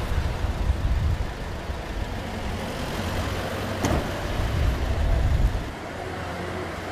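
Low rumble of outdoor street noise, traffic-like, easing near six seconds, with a single sharp click about four seconds in.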